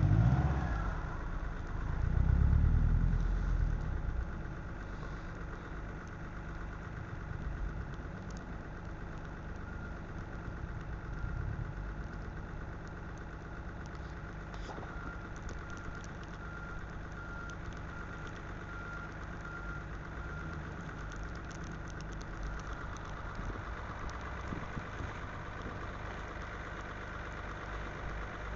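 Car engine idling steadily, with two louder low surges in the first few seconds.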